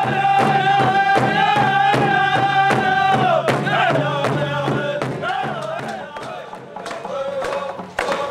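Group of men singing a stick game song to frame hand drums beaten in a fast, even beat of about four strokes a second. The singing holds one high note for about three seconds, then falls and bends in pitch.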